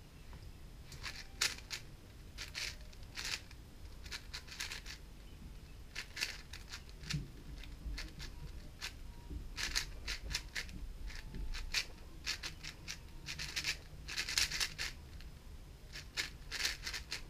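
GAN 460 M 4x4 speedcube being turned fast during a timed solve: irregular bursts of rapid plastic clicking and clacking as the layers snap round, with brief pauses between bursts.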